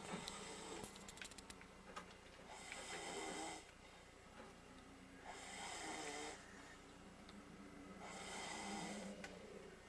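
A man snoring in his sleep: three snores, each about a second long, coming roughly every two and a half to three seconds.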